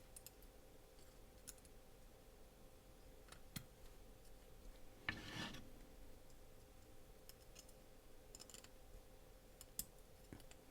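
Near silence broken by a few faint clicks and one brief scrape a little past halfway, as small metal parts of a folding knife are handled and fitted together.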